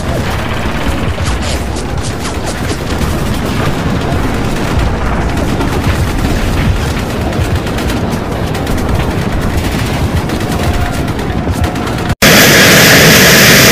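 Dense, continuous battle gunfire: rapid rifle and machine-gun fire with scattered explosions. About twelve seconds in it cuts abruptly to louder, steady jet aircraft engine noise.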